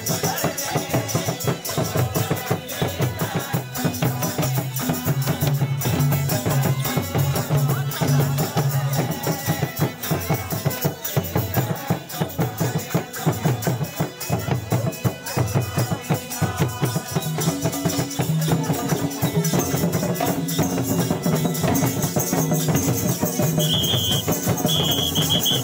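Folk dance music played live: drums and jingling, rattling percussion beat a fast, dense rhythm under a low, stepping melody line. Near the end a high steady whistle-like tone sounds twice.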